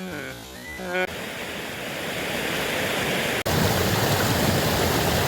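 Waterfall's rushing water, a steady even noise. It drops out for an instant about three and a half seconds in, then returns louder.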